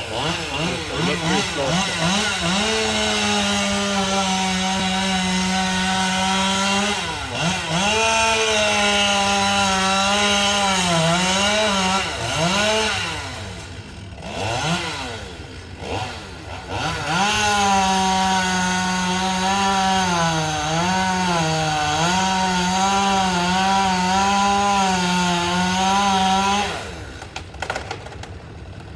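Two-stroke chainsaw cutting into a large poplar trunk at high revs, its pitch sagging and recovering as the chain bites into the wood. There are two long cuts, with the engine dropping back and blipping in between about halfway through, and falling back to idle a couple of seconds before the end.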